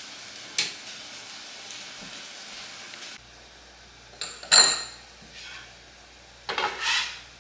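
Kitchenware handled on a counter: a few brief clinks and knocks, with a short metallic or glassy ring about four and a half seconds in and another clink near the end.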